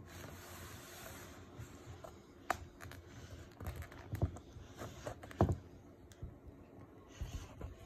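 Handling noise: rubbing and rustling with scattered light taps and knocks as a boxed graphic novel is turned and moved by hand, the sharpest knocks about two and a half and five and a half seconds in.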